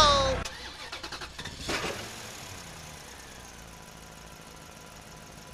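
The end of a loud pitched tone fades out in the first half second. Then the faint hum of an RC toy wheel loader's electric motors is heard as it tips its bucket of soil, with a short burst of noise about 1.7 s in.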